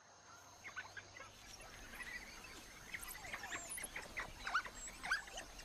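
African wild dogs twittering: a quick string of short, high-pitched chirps and squeaks, starting just under a second in and getting busier later on.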